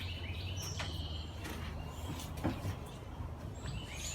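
A few light clicks and a single knock about two and a half seconds in, like parts being handled, over a steady low hum.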